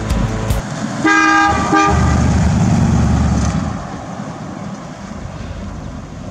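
1962 Mercury Monterey's horn sounding about a second in, a long honk and then a short one, followed by the car's 352 cubic-inch V8 running as it drives away, fading.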